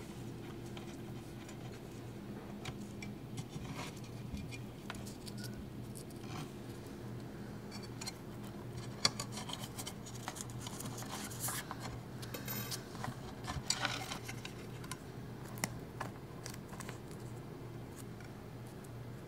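Hands handling an 8-inch speaker woofer and pushing its wire connectors onto the terminals: scattered small clicks, taps and scratches of metal parts against the frame and cabinet, busiest in the middle, over a steady low hum.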